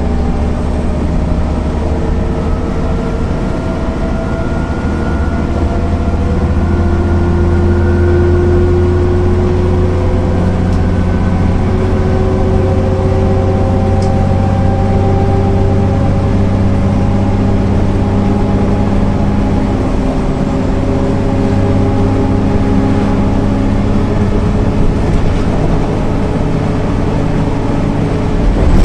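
Diesel engine of a MAN NL 262 low-floor city bus pulling under load, its note rising slowly as the bus gains speed through the ZF 5 HP 600 automatic gearbox, with a change in the engine note about two-thirds of the way through.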